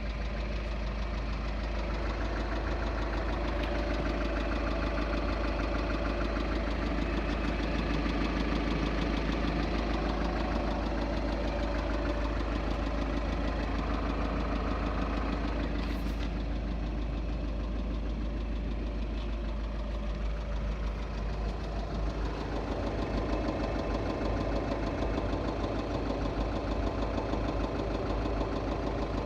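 Volkswagen Group 2.0 TDI common-rail four-cylinder diesel engine running steadily with a knock, which the owner takes for worn connecting-rod bearings.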